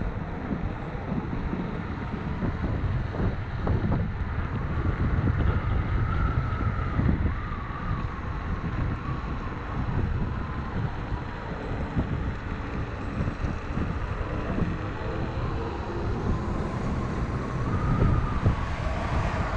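Wind buffeting the microphone and road rumble from an electric scooter riding at speed, with a faint wavering whine from its electric motor.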